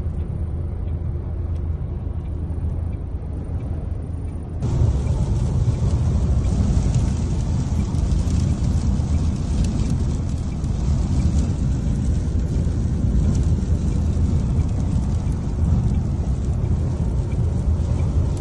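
Steady low rumble and wind noise of a sandstorm, heard from inside a truck cab. About four and a half seconds in, the noise gets louder and hissier.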